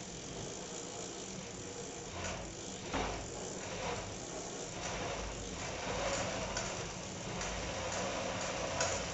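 Home-built electric bike's chain drive turning: chain and sprockets running with a ratcheting, clicking mechanical sound, and a steady hum joining about six seconds in.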